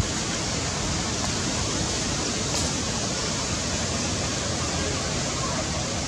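Steady rushing background noise with no distinct source, an even hiss across the range, with one faint click about two and a half seconds in.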